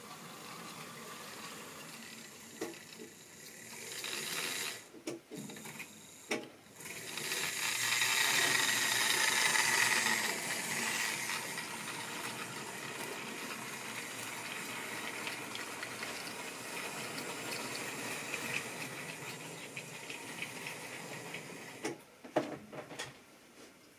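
Triang or Lima model railway train running on the track: the whirr and rattle of the locomotive and wagon wheels, loudest about eight to ten seconds in as the wagons pass close, then steadier. A few sharp clicks near the end.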